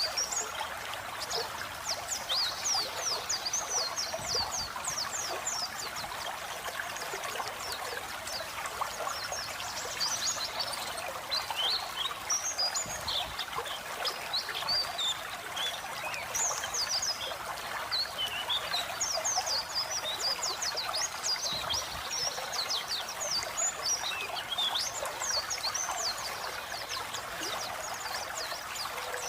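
Pleci (white-eye) singing a fast, chattering ngeriwik song of short, sharp sweeping high notes, over a steady sound of running water.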